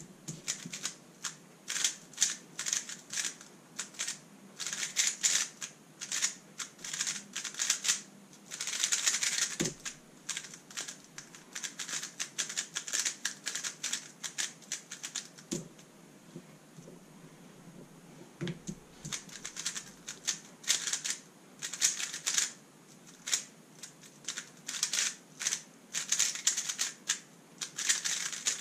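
Thunderclap v3 M magnetic speedcube being turned fast: dense runs of rapid plastic clacking from the layers snapping round, broken by short pauses. A few dull thuds come between runs, about a third of the way in and again a little past halfway.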